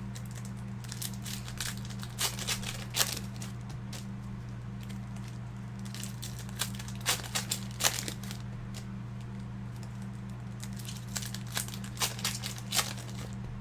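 Plastic card-pack wrapping crinkling and tearing in three short clusters of crackles, over a steady low electrical hum.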